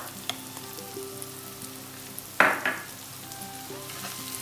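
Sliced onions sizzling in oil in a wok while red pepper paste is stirred in with a wooden spatula. About halfway through, a short, loud double rasp stands out above the steady sizzle.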